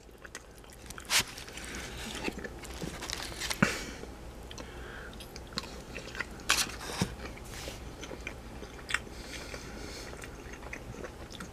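A person chewing a mouthful of sauced buffalo chicken bites close to the microphone: soft, wet chewing with a handful of sharp clicks and smacks scattered through.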